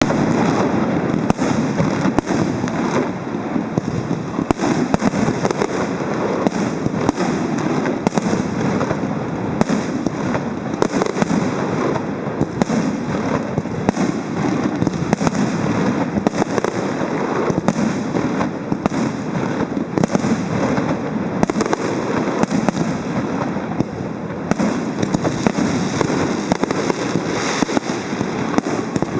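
Fireworks display: a continuous barrage of irregular bangs and crackles over a constant wash of noise, with no let-up.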